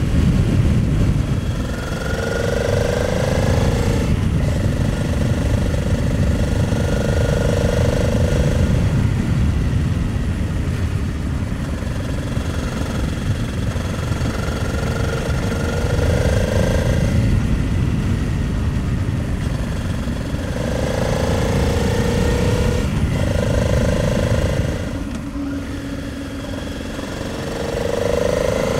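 Honda Transalp 700 V-twin motorcycle engine under way, its revs repeatedly climbing and dropping briefly at gear changes, with a dip as it slows near the end. A heavy rush of wind runs under it.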